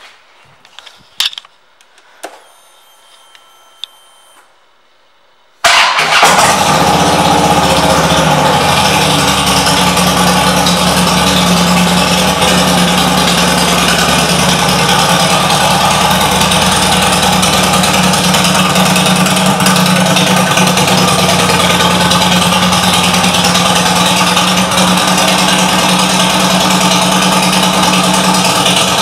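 2009 Harley-Davidson Fat Bob's Twin Cam 96 V-twin engine starting about six seconds in with a sudden catch, then idling steadily. Before it, a few faint clicks and a short, faint whine.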